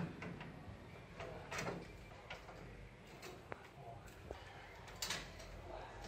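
Scattered light knocks and clicks from an air conditioner outdoor unit being handled and shifted on its metal wall bracket, with a few short scraping noises.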